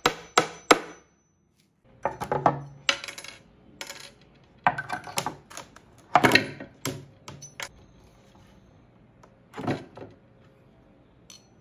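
Hammer striking nails, driving them through the wood: sharp metallic taps, a quick run at first, then after a short break a series of irregular blows, with one last strike near the end.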